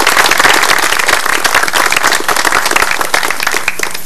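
Audience applauding, a dense patter of many hands clapping that thins slightly toward the end.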